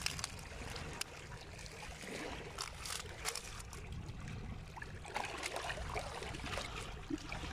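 Water trickling and lapping at a rocky shore, with scattered small clicks and rustles from a wet fishing keep net being handled.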